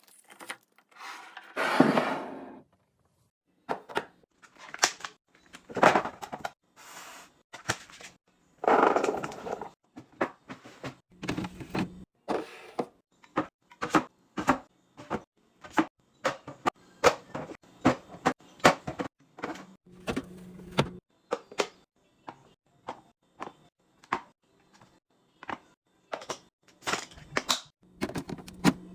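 Groceries and containers being handled and set into a fridge: a long run of short clacks and knocks as items are put down on the shelves, with two longer noisy stretches of handling near the start and about a third of the way in.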